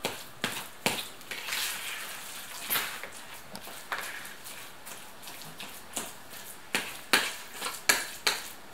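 A fork mashing cottage cheese mixed with eggs and powdered sugar in a bowl: irregular sharp knocks of the fork against the bowl over a soft squishing of the curd, the knocks coming more often near the end.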